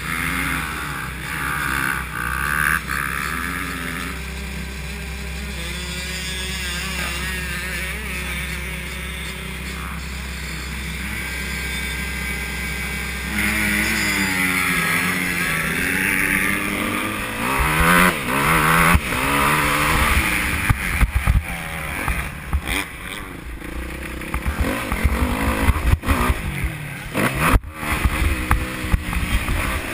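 Motocross bike engine idling steadily, then revving up about 13 seconds in as the bike pulls away and rides along the dirt track. Once under way the engine note rises and falls repeatedly and the sound turns uneven and choppy.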